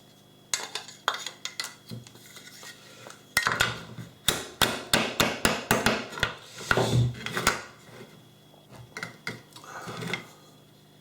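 Sharp clicks and knocks of a hand tool on a plastic electrical connection box, with a dense run of quick taps in the middle, as its knockout is worked open for a cable.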